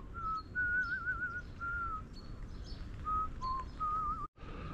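A person whistling a slow tune: a string of short and longer notes with an even tremble in the pitch. The sound breaks off for an instant near the end.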